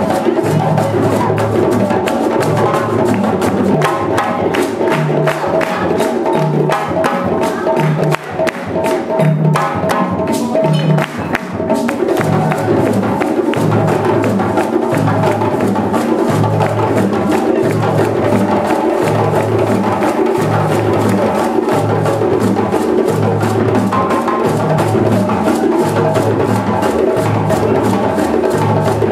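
Live West African percussion music: djembes and bass drums playing a fast, driving rhythm, with balafon notes and calabash shakers over a steady low drum beat. About eight seconds in the rhythm briefly thins out, then the full ensemble comes back in.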